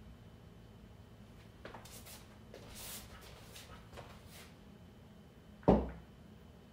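Pool balls being handled while re-racking on a pool table: soft rustling and light taps, then one dull thump near the end as a ball is set down in the rack.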